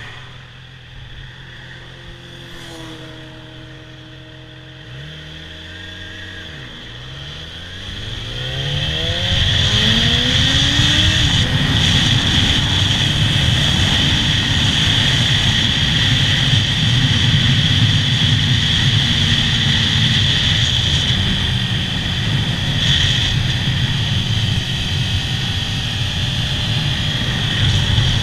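Stock Yamaha R6's inline-four engine idling quietly, then revving up through the gears with rising pitch as the bike pulls away. From about nine seconds in the engine gives way to a loud, steady rush of wind over the helmet-mounted microphone at road speed.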